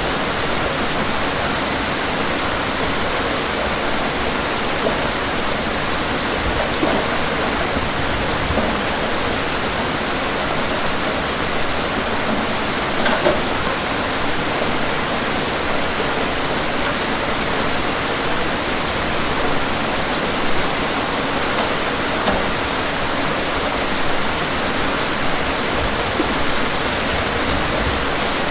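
Steady rainstorm: a dense, even hiss of rain with a few louder single drop hits scattered through it.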